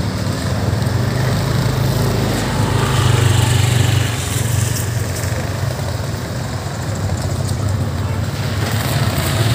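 Motor scooter engine running steadily at low riding speed, with other motorcycles' engines close around; the hum swells a little about three seconds in.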